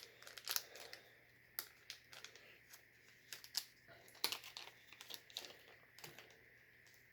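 Small plastic bag of motherboard screws being handled and opened: crinkling with scattered light clicks.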